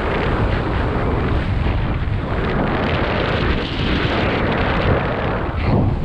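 Wind rushing over the camera's microphone during a descent under an open parachute canopy: a loud, steady rumble of noise with no voices.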